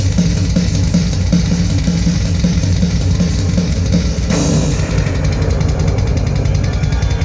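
Rock music with drum kit, bass drum and guitar, played loud through a DIY Dayton Audio 2x50 W Bluetooth speaker kit in a solid-wood fourth-order band-pass box and picked up in the room by a tablet microphone. A crash marks a change in the music a little over four seconds in.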